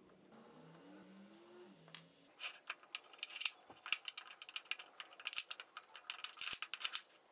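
Small steel C-clamps on a knife handle being worked by hand: a dense run of light, quick metallic clicks and rattles from the clamp screws and swivel pads, starting about two seconds in and stopping shortly before the end. It is preceded by a faint low hum that rises in pitch.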